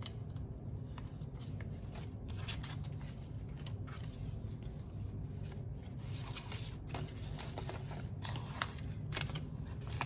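Paper banknotes rustling and crinkling as a stack of US bills is handled, added to and squared up in the hands. The handling gets busier in the second half, with a few sharper snaps of the notes.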